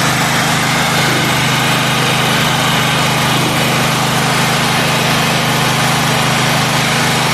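Gasoline generator engine running at a steady speed. It is running slow: its output is about 52 Hz instead of the 60 Hz it should give, so the engine speed needs raising.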